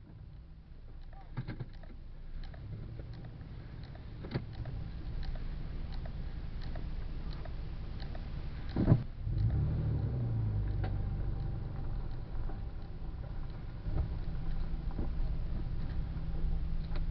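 Off-road vehicle driving slowly along a rough dirt trail, heard from inside the cab: a low engine and road rumble that builds over the first few seconds, with scattered knocks and rattles and one sharp knock about nine seconds in.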